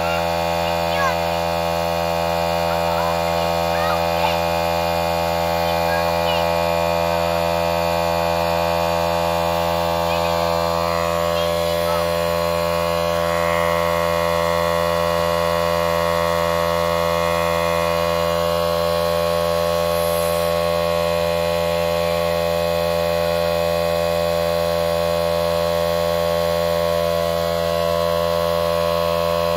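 A steady, unchanging hum with many overtones. A few faint short chirps sound in the first few seconds.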